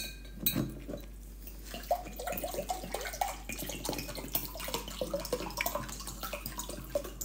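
A person chewing a mouthful of salad close to the microphone: soft, irregular wet mouth clicks and crunches.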